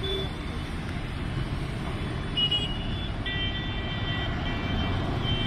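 Steady outdoor rumbling noise, with a high-pitched beeping tone starting about two and a half seconds in and sounding in several stretches for about three seconds.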